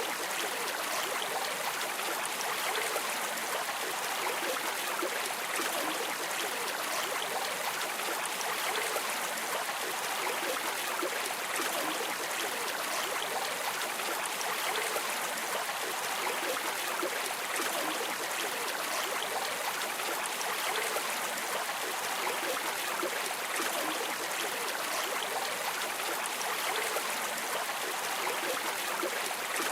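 River water flowing steadily, a continuous rushing and trickling.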